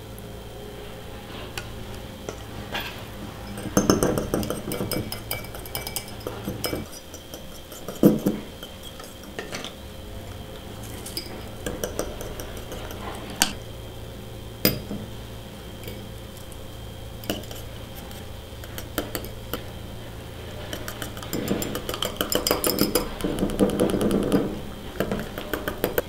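A small wire whisk beating egg, sugar, milk and oil in a mug, clinking quickly against the mug's sides in two longer bursts, with single knocks in between.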